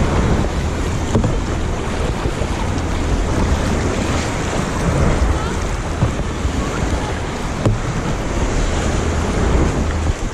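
Wind buffeting the microphone over Lake Superior waves, a steady rush of water and wind with a few brief knocks or splashes.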